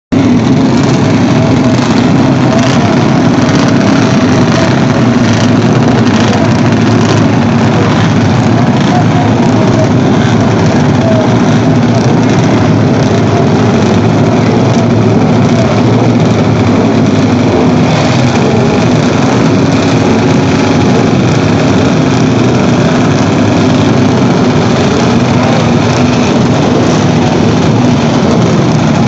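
Several vintage motorcycle engines idling together in a loud, steady mix, their pitch wavering slightly as throttles are blipped.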